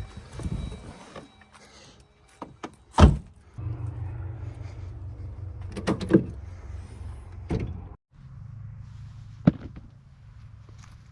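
Several knocks and thumps, like a truck door shutting, the loudest about three seconds in, over a low steady vehicle rumble; the sound cuts out abruptly for a moment around eight seconds in.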